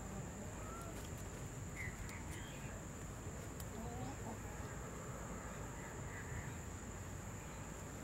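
Quiet outdoor ambience: a steady high insect drone over a low rumble, with a few faint, short bird chirps scattered through it.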